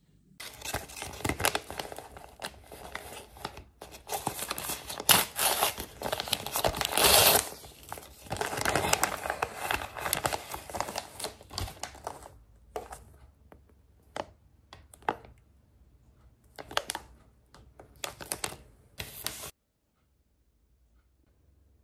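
Plastic mailer bag crinkling and tearing as it is opened and handled, dense for about the first twelve seconds, then sparser crinkles, cutting off suddenly near the end.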